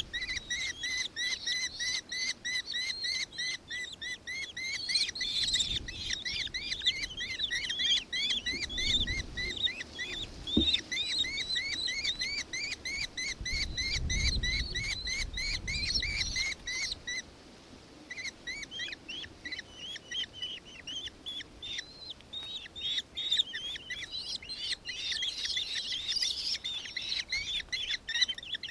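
Nankeen kestrel calling: a long, rapid chatter of repeated high notes that breaks off about two-thirds of the way through, then resumes after a short pause.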